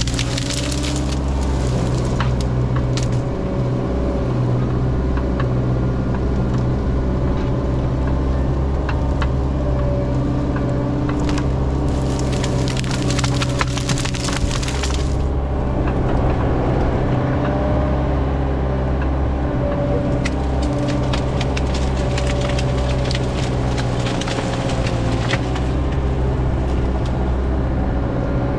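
Mini excavator's diesel engine running steadily while wood cracks and splinters in several bursts, as from limbs and trunk breaking under the machine.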